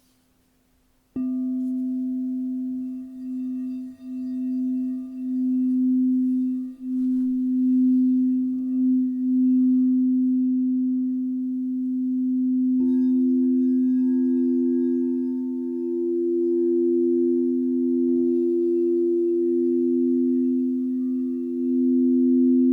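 Crystal singing bowls struck and left to ring: a low bowl sounds about a second in, its long tone pulsing slowly in loudness, and a higher bowl joins with a second sustained tone past the middle, with another strike a few seconds later.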